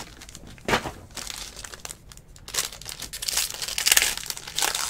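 Foil wrapper of a Tier One baseball card pack crinkling as it is torn and peeled back from the cards. There is one sharp crackle early, then steady crinkling from about halfway, loudest near the end.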